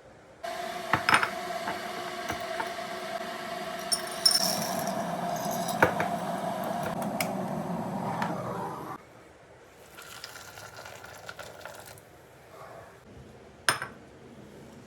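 Vegetable chopper running for about eight seconds, finely chopping onions, garlic, green chilies and coriander leaves, with pieces clinking against the bowl; it stops suddenly, followed by a few fainter clicks.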